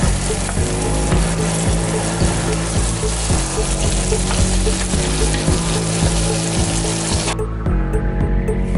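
Garlic and onion sizzling in hot oil in an enamelled cast-iron Dutch oven as they are sautéed, a steady dense sizzle. It cuts off abruptly about seven seconds in.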